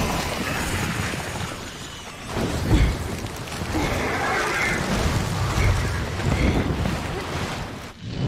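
Battle sound effects of dragon fire: deep rumbling booms and rushing flame, with one sudden loud hit a little under three seconds in.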